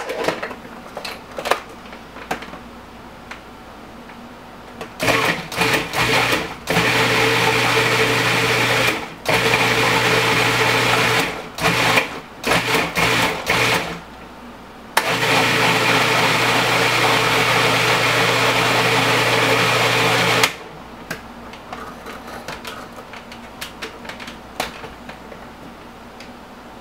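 Cuisinart food processor puréeing cooked tomatoes, peppers and onions: the motor is pulsed in short bursts, runs for a few seconds, is pulsed again, then runs steadily for about five seconds and stops.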